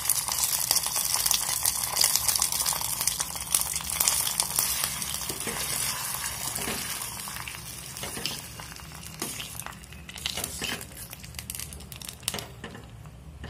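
Hot ghee with fried cashews and raisins sizzling as it goes into a steel pot of sweet flattened-rice pongal, with a spoon clicking against the pot as it is stirred in. The sizzle fades over the second half.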